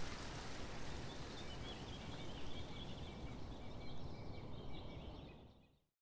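River Nile flowing, a steady rush of water, with faint repeated bird calls over it from about a second in. The sound fades out near the end.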